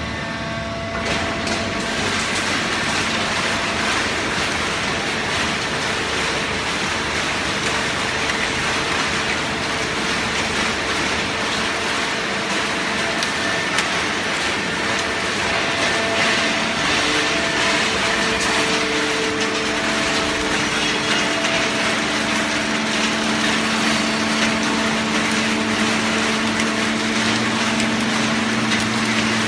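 Hydraulic waste paper baling press running: steady machine noise with a constant low hum, which grows stronger in the last third.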